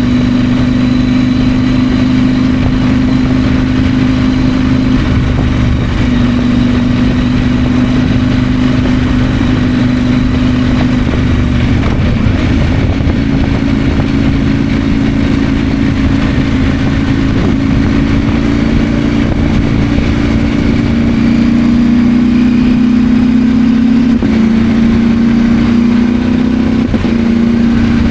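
KTM 890 Adventure's parallel-twin engine running steadily under way. Its note shifts slightly in pitch a few times as the revs change.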